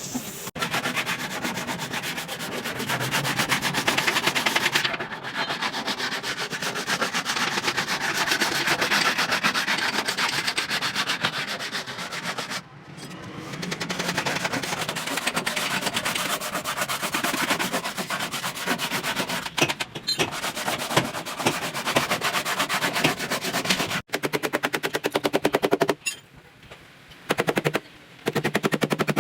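Power tool working on car body metal with a fast, even rattle, cutting out briefly a couple of times and running in short on-off bursts near the end.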